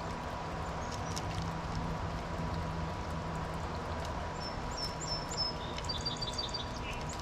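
Small birds chirping: a few short, high, repeated chirps about two-thirds of the way through, over a steady background hiss and faint hum.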